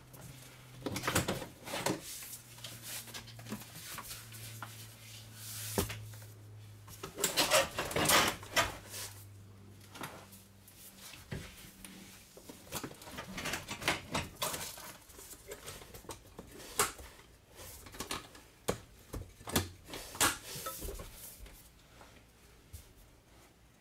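Irregular clunks, knocks and rattles of a Ford E350 van's engine cover being handled and seated into place, loudest about a third of the way in. A steady low hum runs under the first half and then stops.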